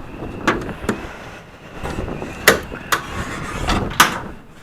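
A handful of sharp knocks and clunks, about five, the loudest about two and a half seconds in and near the end, over a steady low rumble: someone climbing into and moving about a small camper.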